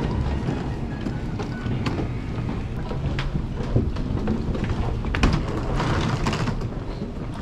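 A moving escalator gives a steady low rumble. Footsteps and the wheels of a rolling suitcase add scattered clicks, with a couple of sharper knocks about four and five seconds in.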